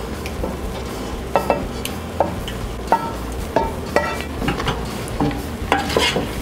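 A spoon knocking and scraping against a frying pan and a pot in an irregular string of knocks, some ringing briefly, as sautéed zucchini rounds are slid into cooked pasta. Stirring of the pasta starts near the end.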